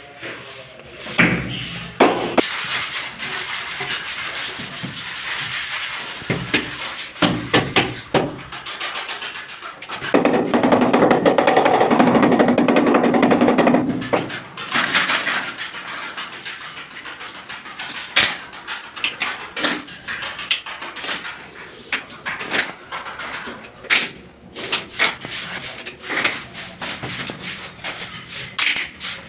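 Clicks and knocks of tile work on a wall: plastic tile leveling clips and wedges being fitted and large tiles pressed into place, over music. About ten seconds in, a louder steady sound lasts about four seconds.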